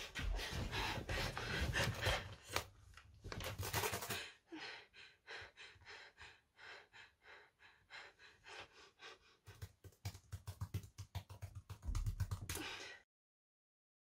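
Quick gasping breaths, then fast clicking of keys on a Chromebook laptop keyboard. The typing comes in rapid runs and stops about a second before the end.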